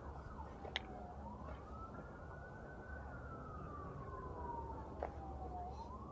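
Faint emergency-vehicle siren on a slow wail: the tone rises, falls gradually over about four seconds, and climbs again near the end. Two short clicks come about a second in and about five seconds in, over a low rumble.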